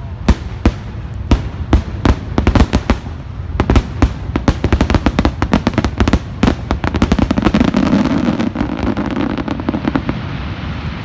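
Fireworks display exploding: a string of sharp bangs that come faster and denser toward the middle, then merge into a steady crackling rumble that slowly fades near the end.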